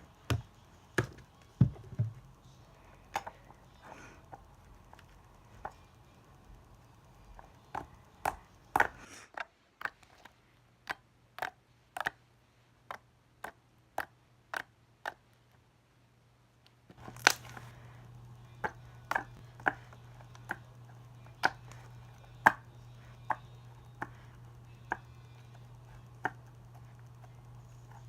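Slime being pressed and poked by hand, making a series of sharp clicking pops at irregular intervals. A steady low hum runs underneath and drops out for several seconds in the middle.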